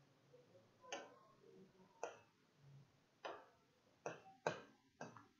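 Near silence broken by about six faint, irregular clicks, bunching closer together near the end: a marker tip tapping against a whiteboard.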